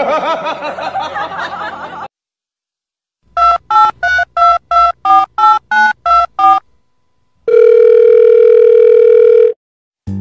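Telephone keypad touch-tones: about a dozen quick two-tone beeps, as if a number is being dialed, then one steady tone lasting about two seconds. They are preceded by about two seconds of a wavering, voice-like sound.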